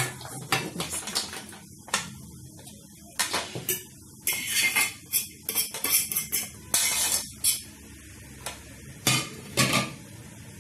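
Aluminium couscoussier steamer basket and metal utensils clanking and clinking as they are handled on the table. The knocks come in irregular clusters of short clatters.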